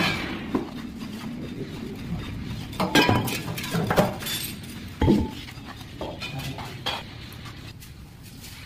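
Metal clinks and knocks from the lid and clamps of a concrete air-content meter as the lid is set on the filled bowl and clamped down. A few separate knocks, the loudest about three, four and five seconds in.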